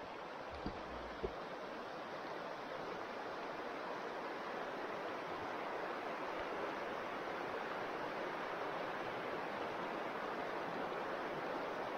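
Shallow, silty river rushing steadily over stones, with two light knocks about a second in.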